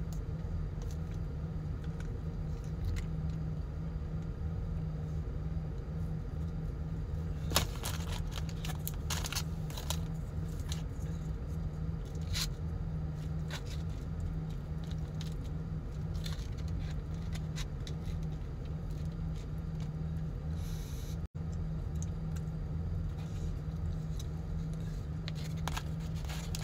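Steady low hum inside a car, with scattered scrapes, clicks and rustles from a plastic fork in a paper food tray and a paper salt packet, the loudest about seven and a half seconds in.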